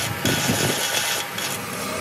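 Hand-held straight grinder grinding the cast iron inside a Fiat tractor's four-cylinder engine block, around the main bearing webs, with a steady, even grinding.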